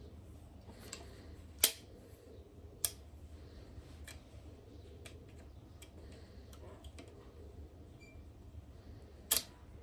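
Three sharp clicks of handling: a loud one about a second and a half in, a weaker one about a second later, and another near the end, with a few faint ticks between them over a low steady hum.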